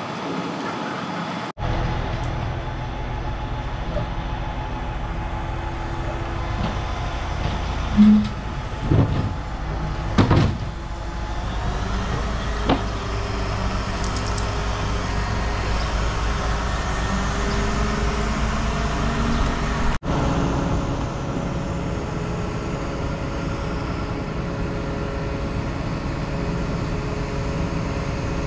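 Crane's engine running steadily, with a few short thumps about eight to ten seconds in.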